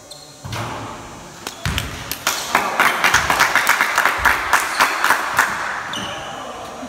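Gym crowd cheering over a fast run of sharp claps and thumps, about five a second, after a couple of dull thuds; it dies away near the end.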